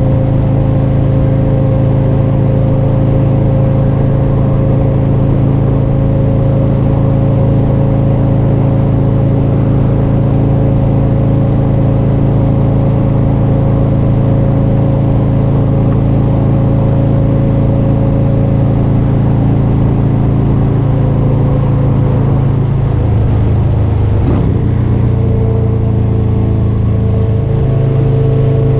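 Motorcycle engine running steadily at cruising speed, with wind and road noise. A little over 23 seconds in the engine note changes, with a brief break, then holds steady again at a new pitch.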